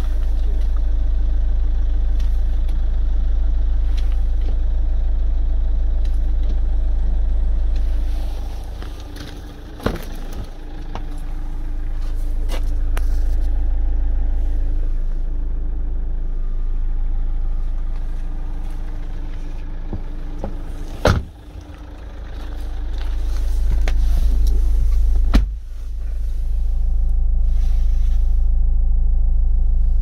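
2007 GM Daewoo Windstorm's 2.0 diesel engine idling with a steady low rumble, heard from inside the cabin. A few sharp knocks stand out, about ten, twenty-one and twenty-five seconds in.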